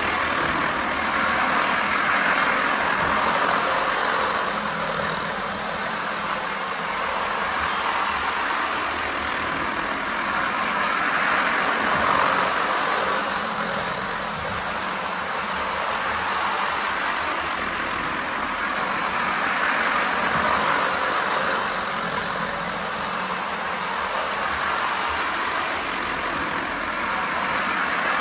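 Lionel Pennsylvania Flyer LionChief O-gauge train running laps of an oval of track: a steady whir and rolling of motor and wheels that swells and fades about every nine seconds as the train comes round close by.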